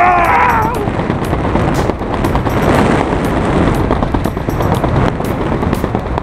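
Wind buffeting the microphone of a wrist-mounted camera during a tandem parachute descent under an open canopy: a steady deep rumble with crackling gusts. A short yell from the passenger sounds about the first second.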